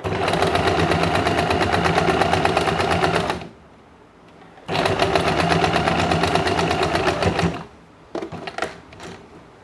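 Electric sewing machine stitching in two runs of about three seconds each, with a short stop between them. A few light clicks of handling follow near the end.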